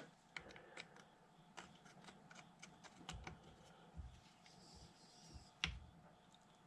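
Faint, scattered small clicks and taps of a T-handle hex key engaging and turning a set screw in a steel tailstock bracket, with one sharper tap near the end.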